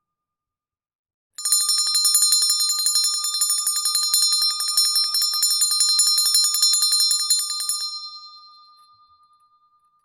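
Large bronze handbell shaken rapidly, the clapper striking many times a second in a continuous jangling ring. The ringing starts about a second and a half in, stops near the end and its ring fades away.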